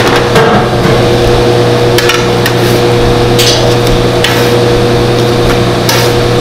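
Metal spatula scraping across a parchment-lined sheet pan and tapping its rim, several short strokes as baked cookies are lifted onto a paper plate, over a steady background hum.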